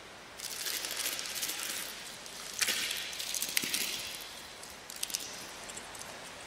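Close rustling and crackling of a hand stroking hair against a pillow. It comes in irregular bursts with sharp crackles at the loudest moments about two and a half and three and a half seconds in, then thins to a few clicks.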